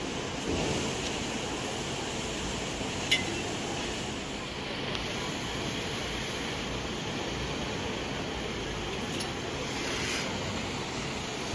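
Steady outdoor background noise with no clear single source, broken by one sharp click about three seconds in.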